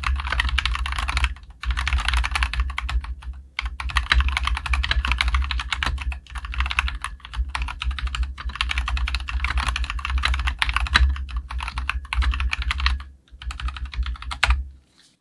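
Fast typing on a COX CK87 tenkeyless mechanical keyboard with Gateron Yellow linear switches: a dense run of clean, clacky keystrokes with a few brief pauses, stopping near the end.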